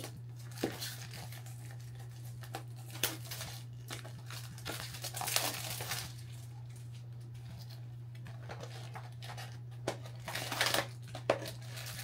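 Plastic package being torn open and crinkled by hand in irregular rustling bursts, busiest about five seconds in and again around ten seconds, over a steady low hum.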